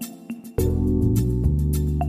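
Background music with a steady beat; a bass line comes in about half a second in and the music grows louder.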